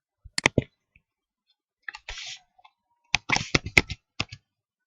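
Keystrokes on a computer keyboard: a few clicks about half a second in, a short hiss around two seconds, then a quick run of typing near the end.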